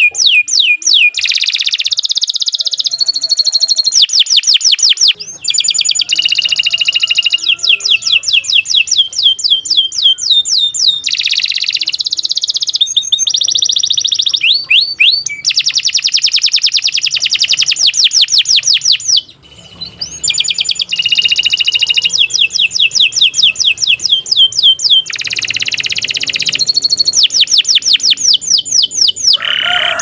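Canary singing a long, nearly unbroken song of fast trills and rolling phrases, with one brief break about two-thirds of the way through.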